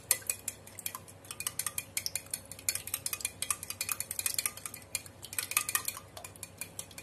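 Metal spoon beating raw eggs in a glass bowl, clinking rapidly and unevenly against the glass.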